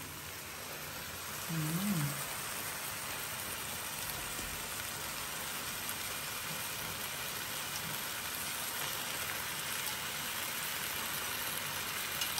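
Oxtail frying in a pan with softened tomatoes, a steady sizzle.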